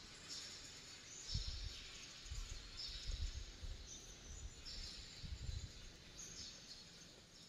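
Repeated high-pitched chirping calls from wildlife, each lasting about half a second to a second, with several dull low thumps scattered among them.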